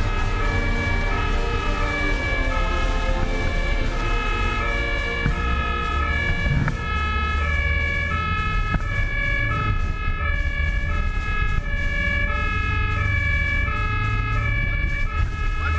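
German fire-brigade two-tone siren (Martinshorn) sounding on an emergency run, its two pitches alternating steadily about every half second or so. The vehicle's engine and road noise run underneath.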